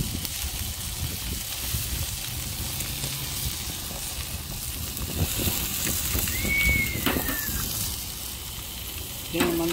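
Meat and sausages sizzling on a propane gas grill's grates and griddle plate, a steady hiss, with a few light clicks in the second half.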